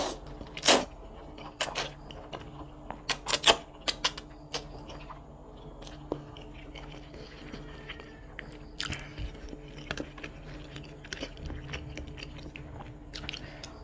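Close-miked eating of mie ayam (Indonesian chicken noodles): a mouthful of noodles is sucked in with a few sharp, wet slurping and smacking sounds in the first few seconds, then it is chewed with softer, scattered mouth clicks.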